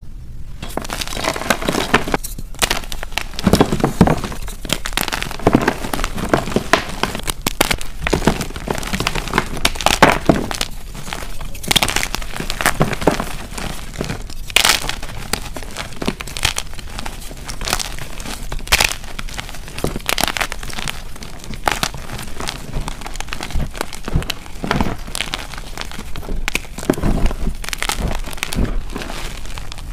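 Hands crushing and crumbling dip-dyed gym chalk blocks and loose chunks: dense, irregular crunching and crackling, with louder cracks now and then.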